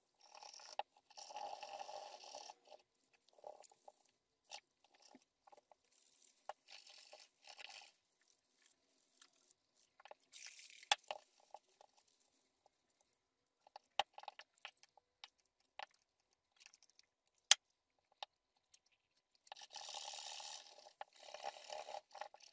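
Gloved hands scrubbing and wiping the metal housing of a Bosch warm-up regulator with a scouring pad and paper towel: faint bursts of rubbing and scraping, with a few sharp clicks between them, the sharpest about two-thirds of the way through.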